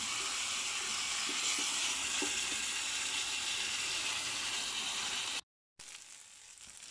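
Marinated chicken mince frying in oil in a non-stick pan: a steady sizzle with a few soft scrapes of a silicone spatula stirring it. About five seconds in, the sound cuts out for a moment and the sizzle comes back much quieter.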